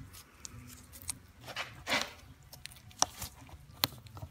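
Small sharp clicks and a short scrape as gloved fingers work the carbon brushes in a starter motor's brush holder, checking which brushes slide and which stick.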